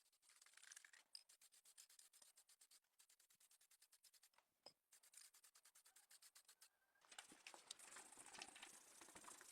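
Faint, fast back-and-forth rubbing strokes on a small model car body, about seven or eight strokes a second, turning into denser, steadier rubbing about seven seconds in.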